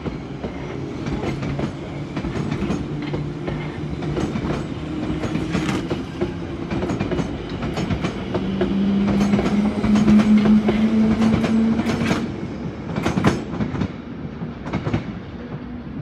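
Bakerloo line 1972 Stock tube train accelerating along the platform. Its traction motors hum with a pitch that rises in steps, loudest about two-thirds of the way through. The wheels give irregular clicks and clacks over the rail joints, and the sound fades as the last cars pass.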